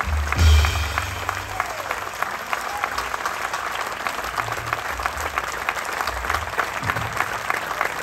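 Audience applauding, a dense, steady patter of many hands clapping. A low thump comes about half a second in.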